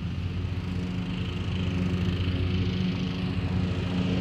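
Lawn mower engine running steadily, a constant drone.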